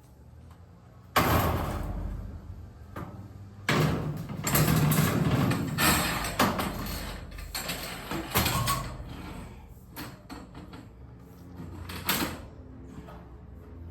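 Metal clanks and scrapes from garage door torsion-spring hardware being handled and fitted back in place. A sharp knock about a second in, a busy run of knocks and scraping in the middle, and one more knock near the end.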